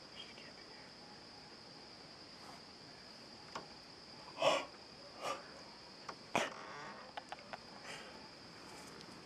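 Night insects trilling steadily at a high pitch, with several clunks and scrapes in the middle as a wooden door is handled.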